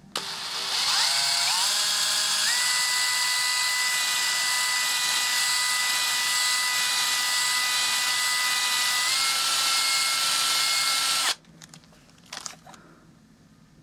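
Cordless drill spinning a small screw with its head pressed against sandpaper, sanding and polishing the screw head. The motor whine climbs in steps to speed over the first couple of seconds, holds steady, rises slightly near the end, then cuts off suddenly about eleven seconds in.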